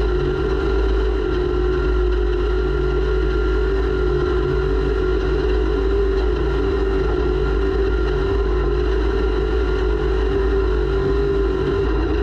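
Off-road race vehicle's engine running at a steady, nearly unchanging pitch, heard from a camera mounted on the vehicle, over a constant low rumble of wind and running gear.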